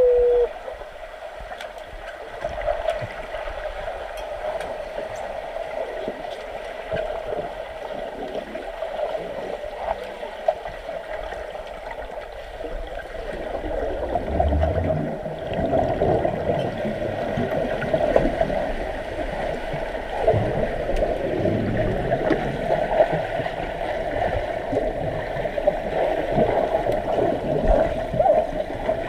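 Pool water churned by swimmers: continuous gurgling and bubbling with small splashes, growing louder and heavier about halfway through.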